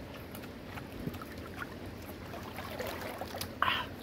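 Faint outdoor background noise with scattered small clicks of handled shells and food, and one brief sucking sound near the end as river snail meat is sucked out of its shell.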